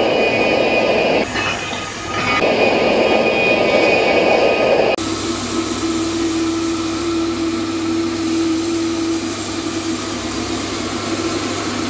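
Angle grinder grinding a weld on a steel vessel head flat, a dense gritty noise with a steady whine in it that eases briefly about a second and a half in. About five seconds in it cuts off abruptly to a steady machine hum.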